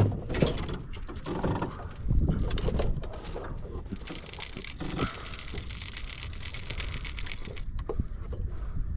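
Water sloshing and splashing, mixed with irregular knocks and clatter.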